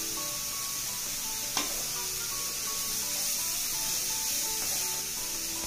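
Grated sweet pumpkin frying in ghee in a kadai on high flame: a steady sizzle, with a single click about one and a half seconds in.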